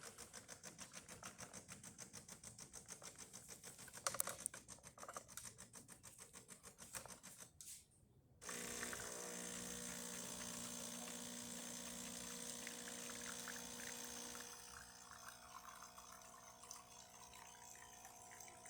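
DeLonghi Specialista Arte espresso machine pulling a test shot: a regular ticking about three times a second, then about eight seconds in the pump starts a steady hum as espresso pours into the cup. The hum drops lower near the end.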